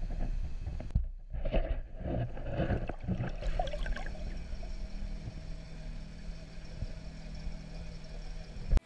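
Underwater sound from a camera on a fishing line: water rushing and gurgling past the housing over a low rumble, with splashy turbulence in the first few seconds and a steady low hum after that. A sharp click near the end.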